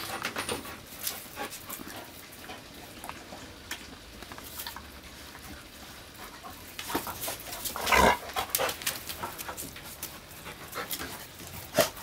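Rottweilers panting while playing, a puppy and a grown dog, in short quick breaths, loudest about eight seconds in.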